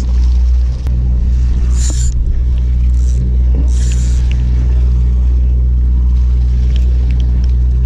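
Boat engine running steadily with a low, even hum, with two brief hisses about two and four seconds in.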